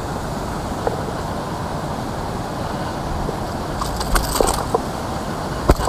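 Steady outdoor rushing noise, with a few light clicks and rattles about four seconds in and one sharp click near the end, as a caught hampala hanging on a topwater lure is handled.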